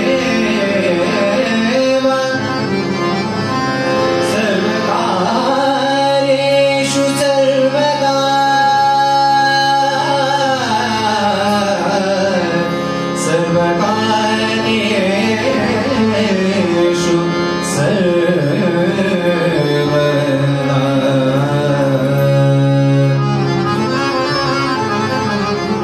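Harmonium and tabla playing the opening of a devotional bhajan, with a voice gliding over the held harmonium notes and no words yet sung.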